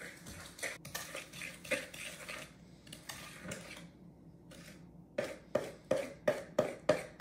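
Metal fork beating egg yolks and sugar in a plastic mixing bowl, scraping and clicking against the bowl. The strokes are uneven at first, then settle into a quick, steady beat of about three a second in the second half.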